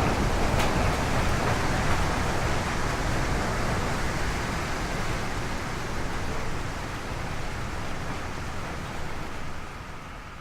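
Steady rushing noise of a car driving through a blizzard, wind and road noise mixed, slowly fading over the last few seconds.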